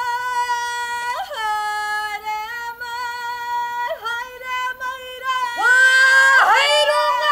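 Māori women performing a karanga, the ceremonial welcome call: one woman's high voice holds long drawn-out notes, gliding between them. About two-thirds of the way through, another woman's voice joins, louder, in overlapping wavering calls.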